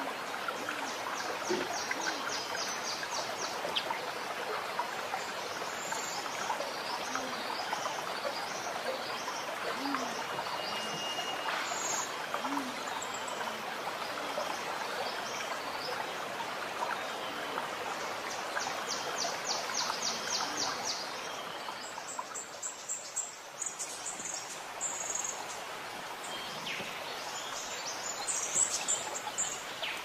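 Young cucak rante songbird chirping and trilling in its cage, with fast high trills near the start and again about two-thirds through and scattered short chirps between. A steady rushing hiss like running water lies underneath.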